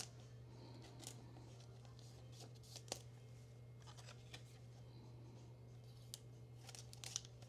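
Faint handling of trading cards: soft slides and small sharp clicks as cards are moved, every second or so, over a low steady hum.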